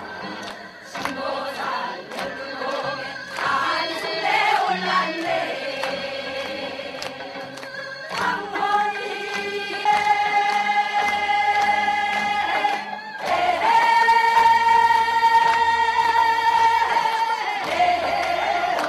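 A chorus of women singing a Korean Gyeonggi folk song (gyeonggi sori) together, moving through a melodic line and then holding two long notes, one after the other, in the second half.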